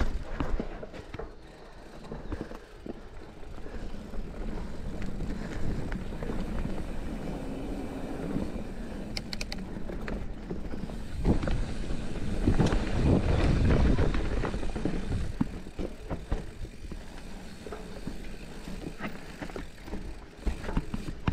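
Giant Trance full-suspension mountain bike rolling down a dirt singletrack: tyres crunching over loose dirt and the bike rattling and knocking over bumps, louder for a few seconds a little past the middle.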